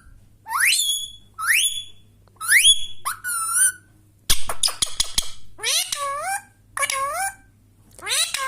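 Indian ringneck parrot calling: about seven short whistled calls, most sliding up in pitch, broken by a short harsh rattle about halfway through.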